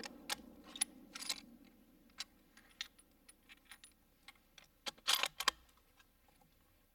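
Scattered light clicks and ticks, with a short, denser cluster about five seconds in. The tail of background music fades out in the first second or so.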